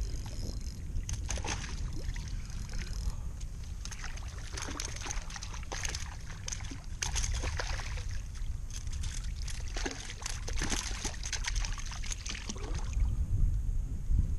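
Water splashing and dripping around a kayak: an irregular run of small splashes and drips with a brief lull, over a low steady rumble.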